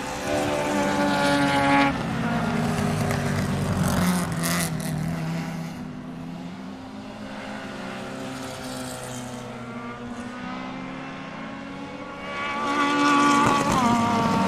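Racing-car engine sound, revving and easing off. It is louder in the first couple of seconds and again near the end, and quieter in between.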